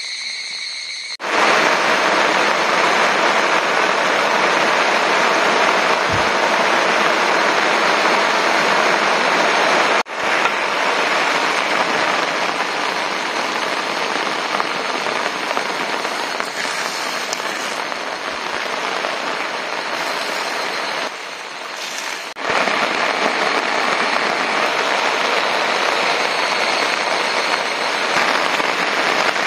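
Steady rain falling on tent and tarp fabric, starting abruptly about a second in and broken by sudden cuts about ten and twenty-two seconds in.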